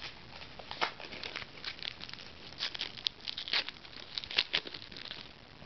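Trading cards and foil card-pack wrappers being handled: a quick string of short crinkles and clicks, stopping about five seconds in.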